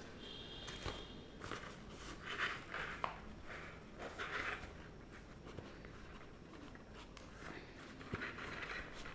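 Faint rustling of a pleated paper model as hands squeeze and rearrange its folds, in several short scratchy rustles.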